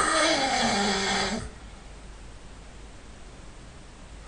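A man snoring: one loud snore whose pitch falls, ending about a second and a half in, followed by a quiet pause before the next snore starts.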